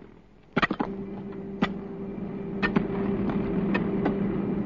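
Construction machinery with an engine running at a steady hum, scattered clanks and knocks over it; it starts about half a second in.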